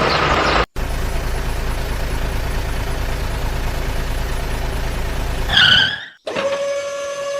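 Vehicle engine sound effect running steadily, cut off abruptly twice as the clip is edited; just before the second cut a short wavering pitched sound, and after it a steady single-pitched tone.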